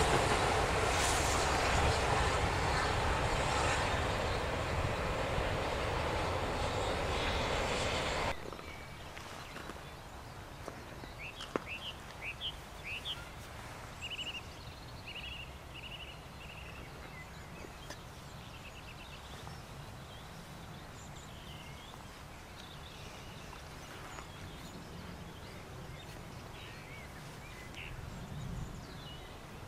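Steam train passing close by, its wheels and running gear clattering along the rails. The sound cuts off suddenly about eight seconds in. After that it is quiet countryside with small birds chirping in quick short calls and the train faint in the distance.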